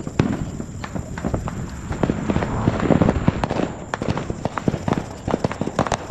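Small consumer firework crackling: a rapid, irregular string of sharp pops over a hiss that swells in the middle.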